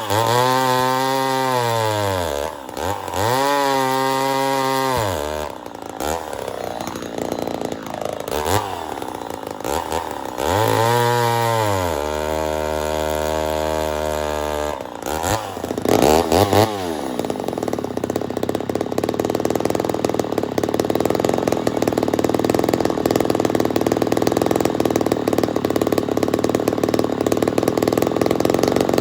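Ported Poulan 245A two-stroke chainsaw revving up and down several times. From about 17 seconds in it holds a steady, rougher-sounding run.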